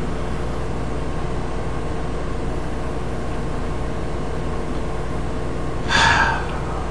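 Steady background hum and hiss with a faint constant tone, with one brief hiss about six seconds in.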